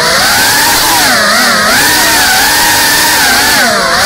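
Brushless motors and ducted propellers of a GEPRC Cinelog 35 cinewhoop FPV drone whining in flight. The pitch dips and climbs again several times as the throttle changes.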